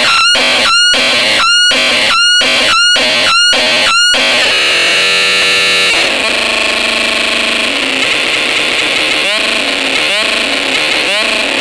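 Boombox Synth 2 noise synthesizer making harsh electronic sound. About seven short chirps sweep up in pitch, one after another, over the first four seconds. Then it settles into a dense, distorted buzzing drone, with a few fainter rising chirps near the end.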